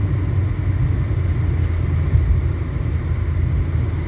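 Steady low rumble with a fainter hiss over it, loud and unbroken.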